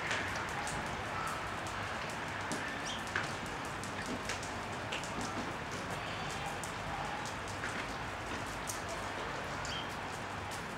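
Steady rain falling on leaves and surfaces, with sharp drips now and then. A few short sparrow chirps come through faintly.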